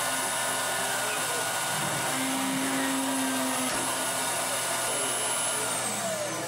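Emco PC Mill 30 CNC mill's spindle motor running steadily with a high whine, its angled engraving bit cutting into copper-clad PCB. Near the end the whine falls in pitch and the sound eases a little.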